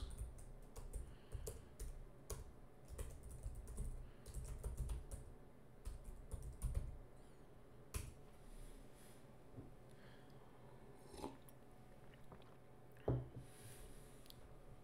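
Typing on a computer keyboard: a quick run of key clicks for about seven seconds, then a sharper single click and a few scattered clicks.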